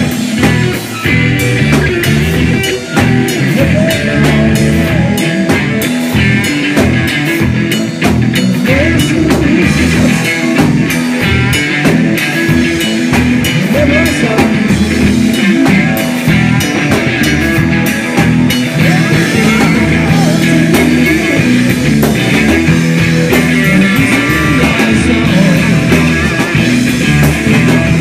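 A live rock band playing loud: distorted electric guitar over a drum kit, with steady drum hits throughout.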